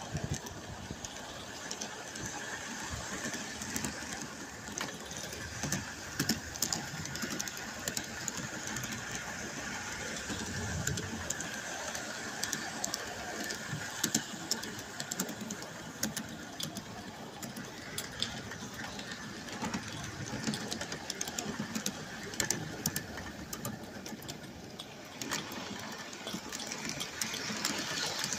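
Live-steam garden-scale train running along its track, heard from a camera riding on the train: a steady rapid clatter with many sharp clicks.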